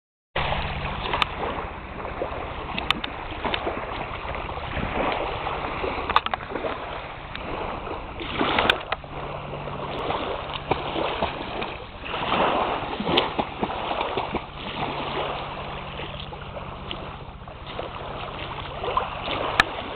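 Small waves lapping at a sandy shore, with wind gusting on the microphone and scattered small splashes. A faint steady low hum runs underneath.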